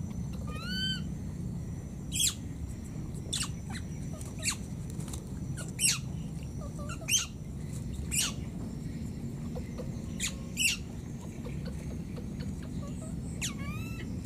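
A baby macaque giving repeated short, high-pitched squeaking calls, about a dozen at irregular intervals of a second or more, with two longer arching whistled calls, one near the start and one near the end: the cries of an infant calling for its mother.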